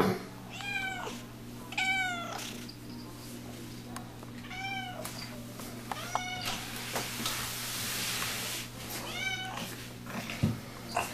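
Five-month-old kitten meowing, five short, high meows that rise and fall, spaced a couple of seconds apart.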